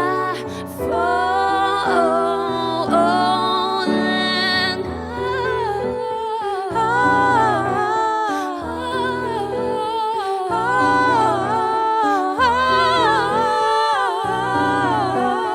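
Female voice singing wordless runs that glide up and down, over piano chords.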